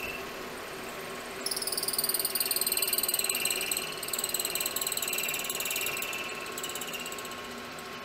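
Milling machine running with a steady spindle hum; about a second and a half in, the end mill starts cutting into the aluminum vise jaw, adding a high, pulsing cutting whine that eases off near the end.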